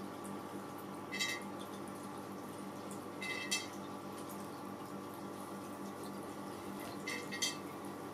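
Toppled clear glass vases giving light, high clinks as cats nose and paw at them: a few short pings in three small clusters, about a second in, near the middle, and near the end. A faint steady hum runs underneath.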